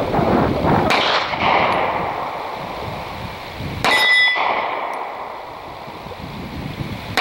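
Springfield Ronin EMP pistol shots with the steel plate target clanging as it is hit: one about a second in, one near four seconds with a clear ringing tone, and another right at the end. Wind noise fills the gaps between them.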